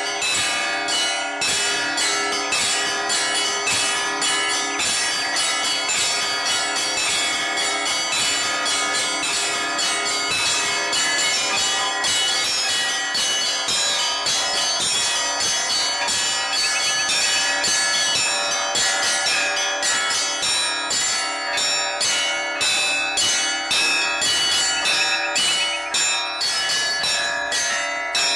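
Orthodox church bells ringing in a continuous, unbroken peal, with several bells struck rapidly and overlapping, many strokes a second over the ringing of the larger bells.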